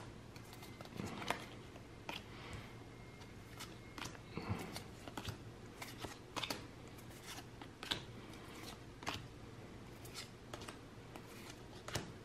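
Pokémon trading cards slid one by one off a small stack by hand, with soft, irregular clicks and rustles of card stock.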